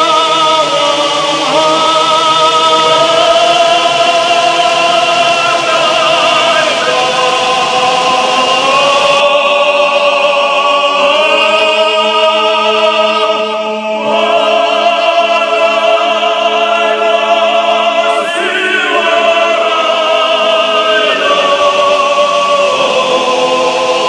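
Background music of long, held sung notes with vibrato in an operatic, choral style. The texture changes abruptly about nine seconds in and again near eighteen seconds.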